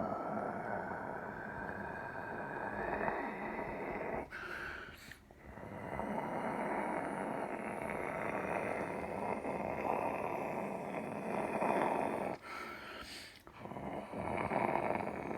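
Airbus Beluga's jet engines running loud as the aircraft rolls out after touchdown, a steady rushing roar with a thin whine that slowly rises. It drops away briefly twice, about four seconds in and again near the end.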